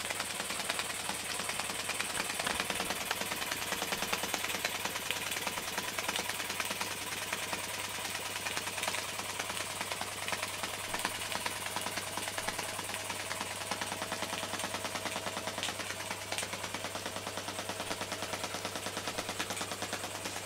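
Small Marklin toy steam donkey engine with a single-acting cylinder running steadily, making a rapid, even beat of exhaust puffs and mechanical clatter over a low steady hum.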